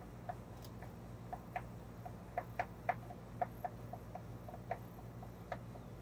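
Hand screwdriver driving a screw into a stainless steel panic bar's mounting: an irregular run of small metallic clicks and ticks, thickest and loudest from about two to three and a half seconds in. A low steady hum sits underneath.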